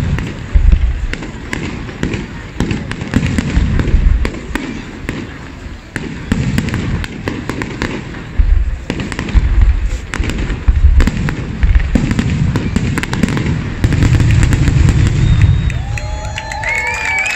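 Aerial fireworks shells bursting in deep booms every second or two over a thick, steady crackle of sharp pops, with a dense run of booms near the end.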